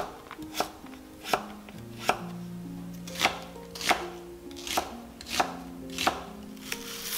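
A chef's knife chopping through sweet potato and then onion onto a wooden cutting board, with sharp, even knocks about every two-thirds of a second. Soft background music plays underneath.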